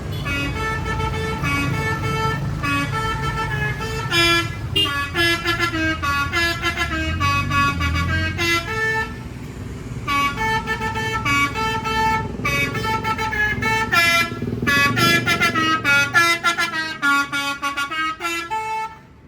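Bus telolet horn: a multi-tone air horn playing a quick melody of short honks, over the bus's engine running. The tune pauses for about a second midway and cuts off suddenly at the end.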